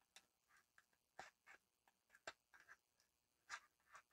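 Near silence, broken by faint, scattered clicks and rustles of a product package being picked open by hand.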